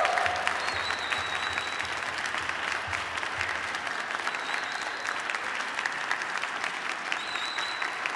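Concert audience applauding steadily, a dense patter of clapping.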